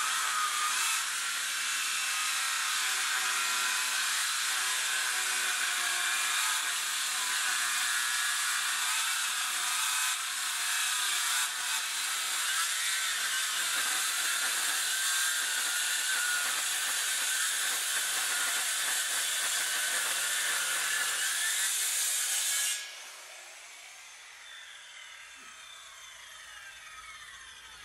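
Circular saw cutting through a chunk of recycled hardwood with its blade set at a bevel angle, its pitch wavering under load. About 23 seconds in the saw is switched off and the blade winds down with a faint falling whine.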